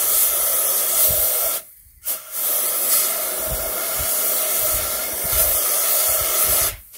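Aerosol freeze spray hissing from a can through a dosing nozzle onto a motorcycle steering-head bearing race, chilling it so it drops out of the heated frame. Two long bursts, with a short break a little under two seconds in; each stops abruptly.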